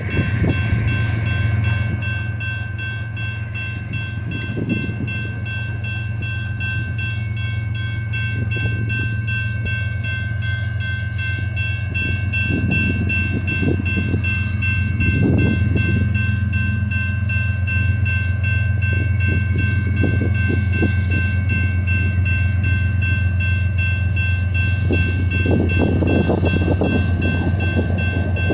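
CSX GE ES44AC diesel-electric locomotives running, a steady deep engine drone with a steady high whine above it, growing a little louder over the first half.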